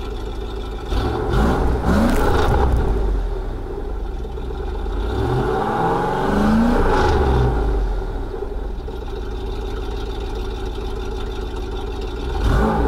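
Chevrolet Avalanche's 5.3 L Vortec V8 revving hard in repeated bursts while the rear wheel spins in deep snow. The pitch climbs about a second in, again around six seconds, and once more near the end.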